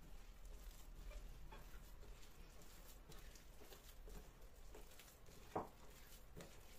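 Faint, irregular soft patting and squishing of hands kneading a crumbly butter-and-flour dough in a glass bowl, with one sharper knock about five and a half seconds in.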